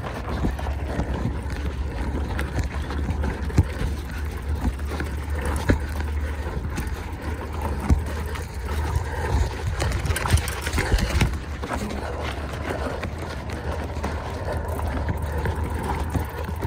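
Wind buffeting the microphone of a mountain bike in motion, with many short knocks and rattles from the bike going over rough ground.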